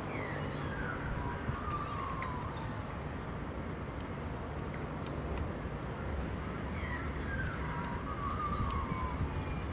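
Distant diesel-electric freight locomotive rumbling steadily as it approaches slowly with a loaded train. Twice, a high whistle-like call slides down in pitch over about two seconds, once at the start and again about seven seconds later.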